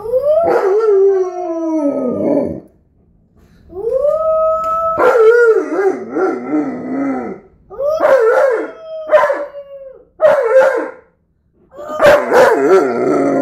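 Alaskan Malamute howling with a child howling along: a series of about five long, loud, wavering howls with short breaks between them.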